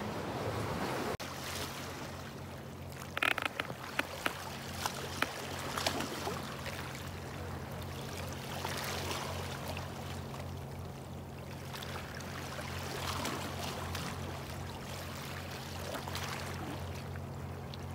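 Sea water lapping and trickling among rocks, with a steady low hum under it from about a second in and a few sharp clicks between about three and six seconds in.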